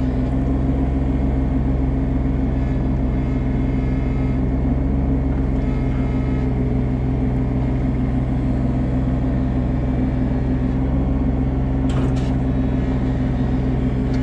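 Komatsu PC16 mini excavator's diesel engine running steadily under load as the machine digs and swings its bucket, heard close up from the machine itself. A brief rattle comes about twelve seconds in.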